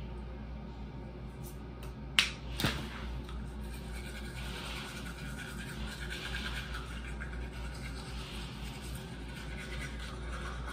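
Two sharp clicks a little over two seconds in, then a manual toothbrush scrubbing teeth in uneven strokes.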